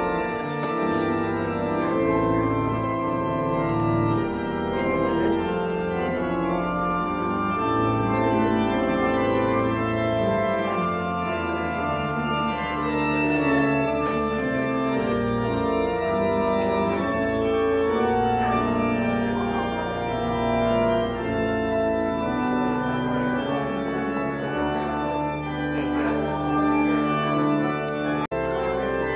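Organ music: slow, sustained chords that change every second or two, with a momentary break near the end.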